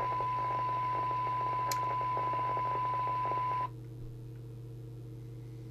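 Steady 1 kHz test tone over a low electrical hum, the kind of tone used to check a CB transmitter's FM deviation. The tone and its hiss cut off suddenly about three and a half seconds in, leaving the hum.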